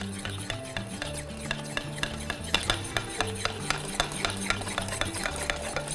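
Egg and panela beaten by hand in a small bowl, the utensil striking the bowl's sides in quick, uneven clicks several times a second, as the sugar is creamed into the egg for cookie dough.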